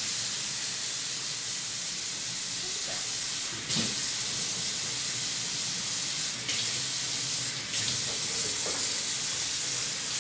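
Pull-down kitchen faucet sprayer running a steady spray of warm water over a newborn's head into the sink, with a few brief dips in the flow.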